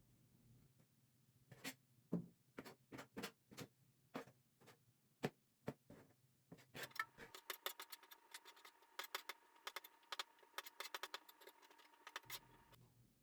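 Light clicks and taps of kitchen work, scattered at first, then coming quickly for about six seconds from the middle on, over a faint steady tone.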